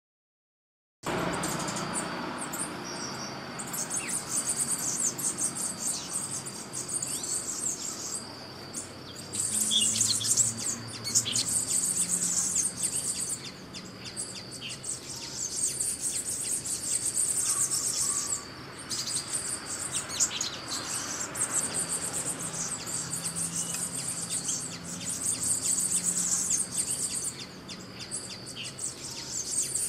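Forest ambience starting about a second in: a high-pitched insect chorus buzzing with a few short breaks, and short bird chirps now and then.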